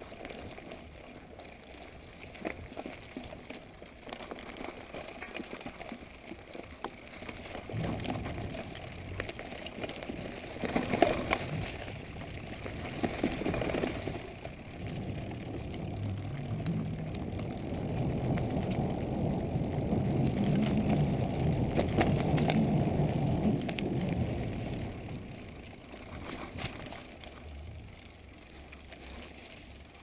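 Corratec mountain bike rolling down a dirt forest trail: tyres rumbling over dirt, leaves and roots, with the bike knocking and rattling over bumps. A few sharp knocks come about a third of the way in, and the rumble is loudest past the middle before easing near the end.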